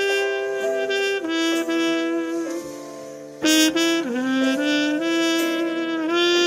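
Trumpet playing a slow melody of long held notes; it drops softer for about a second in the middle, then comes back in strongly.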